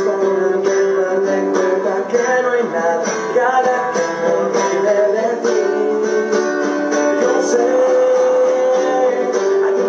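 Acoustic guitar strummed in chords, with a man singing along.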